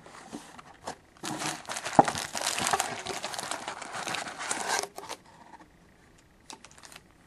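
Wrapped trading-card packs crinkling and rustling against their cardboard box as the box is opened and the packs are pulled out. It starts about a second in, with a sharp click about two seconds in, and dies down to a few faint ticks near the end.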